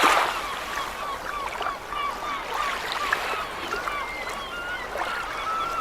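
A flock of seagulls calling over one another in many short, repeated cries, over the wash of sea waves. A wave surges in loudly right at the start.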